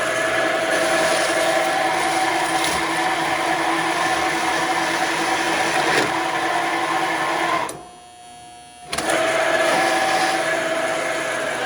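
Horizontal metal-cutting band saw running, its blade cutting through a SATA hard drive: a steady machine whine made of several held tones. About two-thirds of the way through, the sound drops out abruptly for about a second, then resumes.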